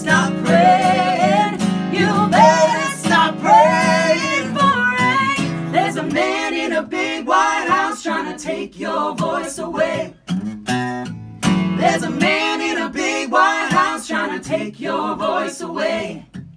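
Live acoustic guitar strummed while male and female voices sing a song together.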